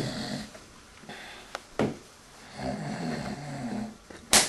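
A man snoring in slow, drawn-out breaths, with a short sharp noise between snores. Just before the end, a sudden sharp smack as a spatula strikes the sleeper to wake him.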